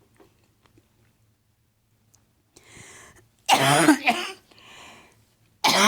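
A woman coughing hard: a breath in, one loud hacking cough about three and a half seconds in, another breath, and a second cough starting right at the end.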